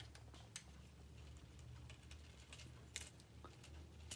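Faint, scattered clicks of small K'nex plastic pieces being handled and snapped onto rods, the sharpest about three seconds in, over a low steady hum.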